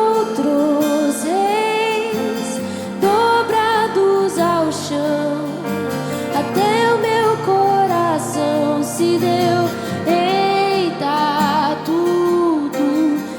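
Contemporary Christian worship song: a sung melody of long, gliding notes over a band backing.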